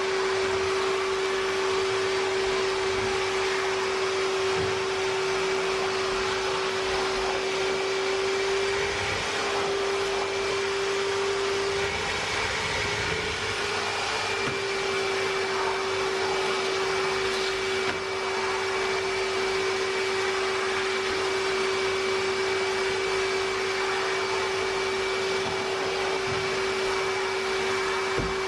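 Red canister wet-and-dry vacuum running with its hose in use: a steady motor hum over the rush of suction air. The pitch wavers briefly about a third of the way in, then settles again.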